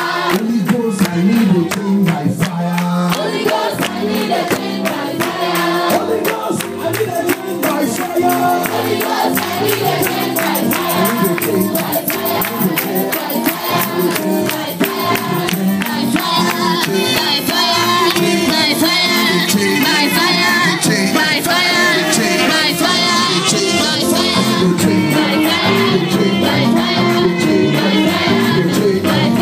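A crowd singing a fast praise chorus together, with hand percussion keeping a steady quick beat.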